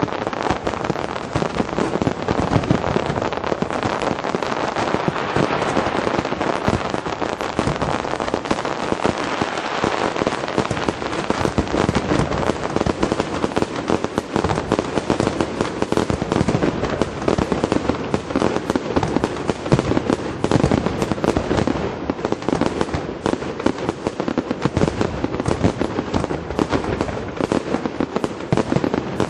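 Professional fireworks display finale: a dense, unbroken barrage of rapid cracks and bangs from many aerial shells bursting at once.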